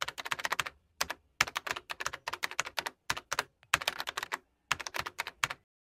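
Typing on a computer keyboard: runs of rapid key clicks broken by short pauses.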